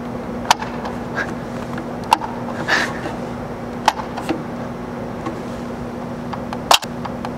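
Plastic teeth of a crocodile-roulette biting toy being pressed down one at a time: a handful of short, sharp clicks spaced a second or so apart, the loudest near the end, over a steady low hum.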